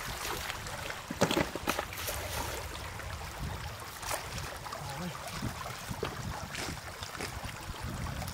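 Splashing and sloshing in shallow water as catfish thrash and are grabbed by hand into a wicker basket, with a few sharp splashes, the loudest about a second in.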